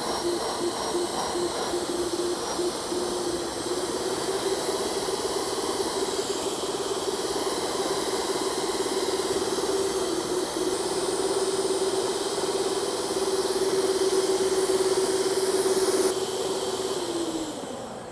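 Electric stand mixer motor running steadily with its beaters whirring, beating butter, brown sugar and egg yolks. It steps up a little about four seconds in, then winds down in pitch near the end as it is switched off.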